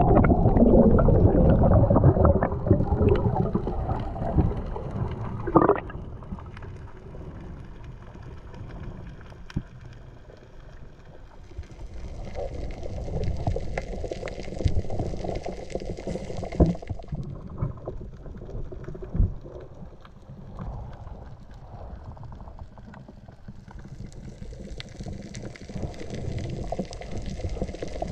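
Underwater sound in a diver's camera: a low rush and gurgle of moving water, loudest for the first few seconds, then quieter, with two longer swells of hiss and a few short knocks.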